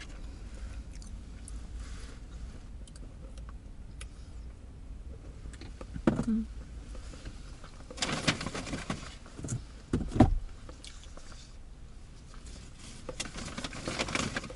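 Paper takeout wrapper and bag rustling as food and a fries container are handled in a car cabin, with a dull thump about ten seconds in, over a low steady rumble.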